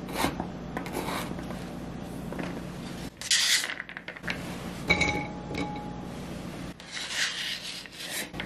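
Diced carrot pieces being scraped and slid across a plastic cutting mat with a chef's knife and hand, after a couple of final knife taps. There is a brief ringing clink about five seconds in.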